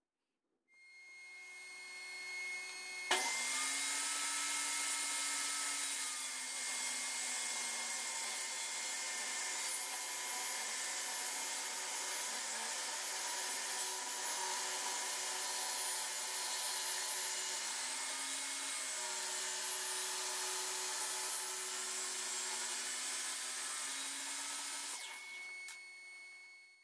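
Table saw running free, then ripping a round wooden rod lengthwise: about three seconds in the blade bites into the wood and a loud, steady cutting noise holds for some twenty seconds, its motor pitch sagging and recovering under load, before it eases off near the end as the cut finishes.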